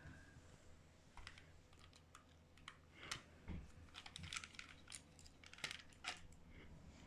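Faint, irregular small clicks and taps of a tiny Torx screwdriver working small screws out of a plastic headphone housing.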